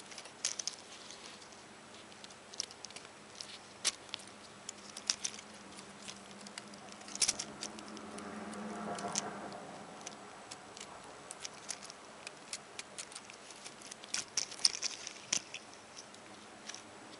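Lego Technic plastic parts clicking and rattling irregularly as the model truck is handled and turned close to the microphone, with a brief low swell of sound about halfway through.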